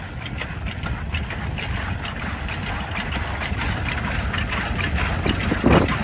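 Farm tractor engine running steadily as the tractor drives through shallow seawater towing a clam-dredging rig, with irregular splashing and sloshing of water around the wheels and rig that grows louder, and a heavier splash near the end.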